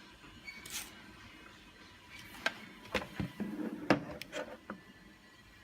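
Scattered clicks and knocks with some rubbing as a DVR case and the hard drive seated inside it are handled.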